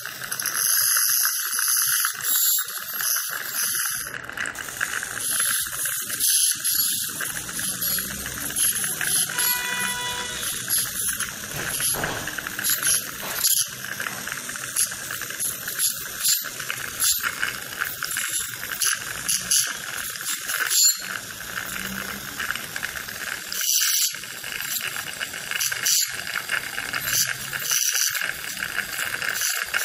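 Piezoelectric ultrasonic dental handpiece with a margin-finishing tip running steadily against the tooth margins: a constant high buzz over a hiss, with many scattered clicks and a short pitched tone about ten seconds in.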